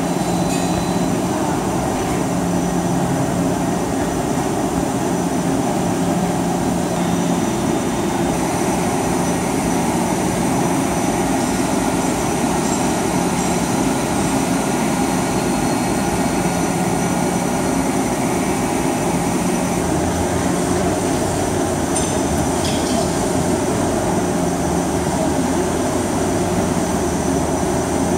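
Hwacheon Hi-TECH 450BL CNC turning center hard-turning a hardened bearing-steel part (HRC58): steady machining noise from the spinning chuck and the insert cutting the workpiece.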